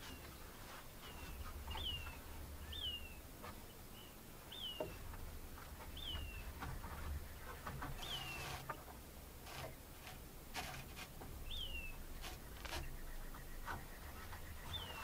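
A bird calling over and over: short, high notes that rise briefly and slur downward, one to two seconds apart. Faint scattered clicks and a low rumble sit beneath.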